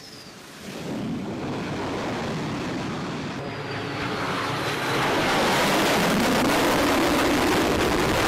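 Jet engine noise from an F/A-18 fighter on landing approach: a loud, even rushing noise that swells about a second in and again around five seconds.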